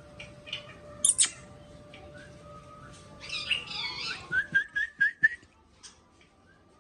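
African grey parrot calling: two sharp, high shrieks about a second in, a harsh chattering burst around three seconds in, then a quick run of about five short whistled notes.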